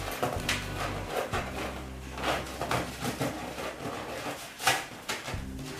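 An inflated rubber balloon being handled and knotted by hand: irregular rubbing and handling noises of the latex under the fingers, the loudest a little under five seconds in.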